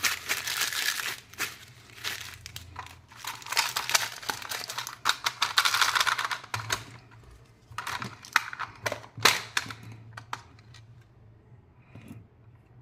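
Candy wrapper being crinkled and handled, in bursts of crackling, which thin out and stop near the end.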